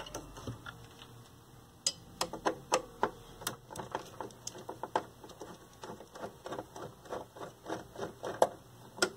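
Quick, uneven metallic clicks, several a second, starting about two seconds in, of a tool working the quarter-inch nuts that hold a TV's tuner assembly to the chassis.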